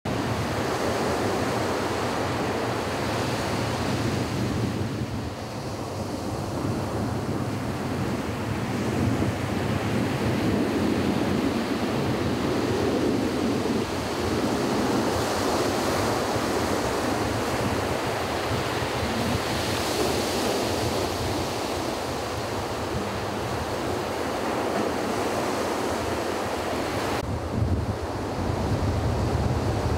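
Sea surf breaking and washing ashore in a continuous rush that swells and eases over several seconds.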